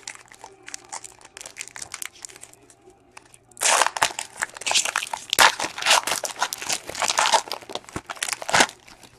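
Foil wrapper of a trading-card pack being torn open and crinkled by hand. It crackles faintly at first, then crinkles loudly from about three and a half seconds in.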